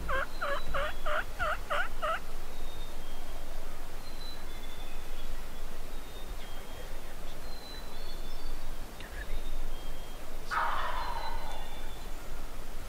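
Eastern wild turkey gobbler gobbling: a fast rolling gobble of about eight notes lasting about two seconds at the start. A shorter, harsher burst of sound follows about ten seconds later, and faint high bird chirps sound throughout.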